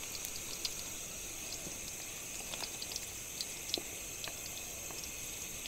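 Sliced onions sizzling in hot oil in an aluminium wok: a steady hiss with many small scattered crackles.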